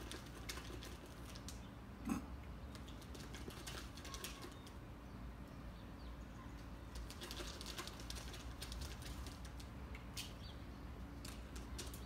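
Dry twigs and grass crackling and rustling in irregular little scratches as a bird works its nest material in a box on a wall light, with one louder knock about two seconds in, over a low steady hum.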